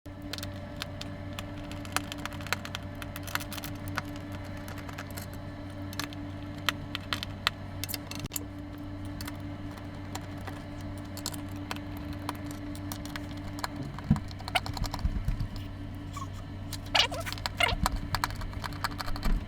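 A screwdriver backing screws out of the sheet-metal cover of a power supply: scattered small clicks and scrapes of the tool and screws, over a steady low hum. Near the end there is a short run of brighter metallic clinks.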